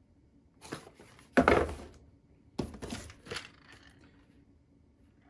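Cardboard product boxes and packaging being handled: a few rustles and knocks, the loudest a thud with rustling about a second and a half in.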